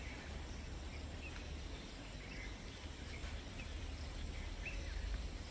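Quiet outdoor ambience at a forest edge: a few short, faint bird chirps scattered over a low steady rumble, with no loud call standing out.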